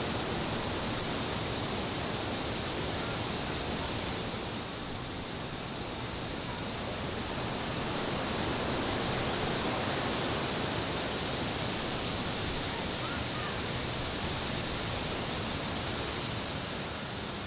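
Steady hiss with a thin, constant high whine above it and no other sound: the noise floor of a transfer of silent 8mm home-movie film.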